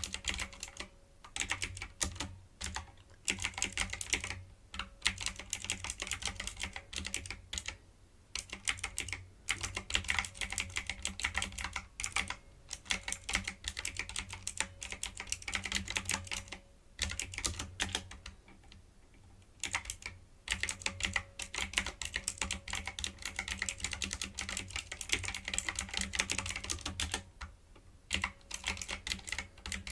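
Fast typing on a typewriter-style mechanical keyboard: dense runs of key clicks, broken by a few short pauses.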